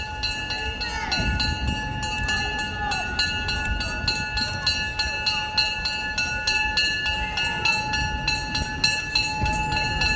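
Steam-train sound effects from the Stockton Flyer sculpture's show: a regular rapid clatter of about three clicks a second under several steady whistle-like tones.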